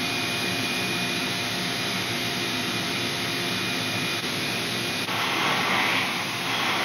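Shop vacuum running steadily. About five seconds in its sound turns brighter and hissier as the hose nozzle is drawn over the freshly sanded board, sucking up the sanding dust.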